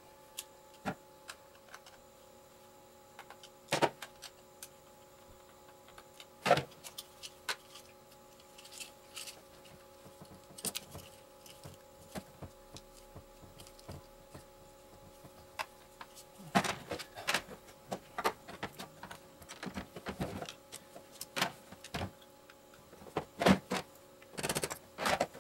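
Small parts and tools of an airsoft gearbox being handled on a workbench: scattered clicks, taps and knocks, busier in the second half, over a steady faint hum.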